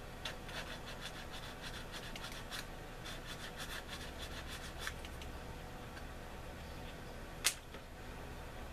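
Sanding stick rubbed in quick short strokes along the edge of a plastic model kit's wing part, for about five seconds; a single sharp click near the end.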